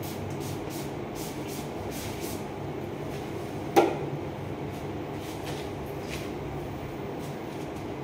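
Trigger spray bottle misting in a series of short squirts, over a steady low hum, with one sharp knock about four seconds in.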